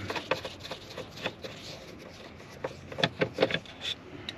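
Scattered clicks, knocks and rubbing as a T20 Torx driver works a screw out of the plastic steering column cover, with the loudest cluster about three seconds in.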